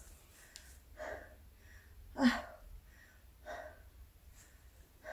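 A person's short, breathy exhalations, about one every second and a quarter, the one near the middle the loudest.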